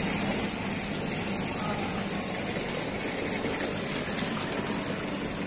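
Water pouring and bubbling in aerated live-seafood tanks, a steady rush with a low hum underneath.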